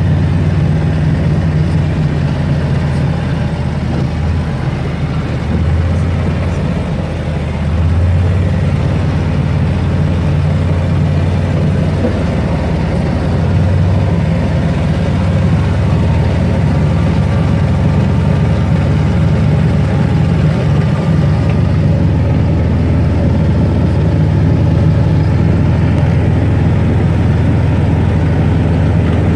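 Small utility vehicle's engine running steadily while driving, a constant low drone.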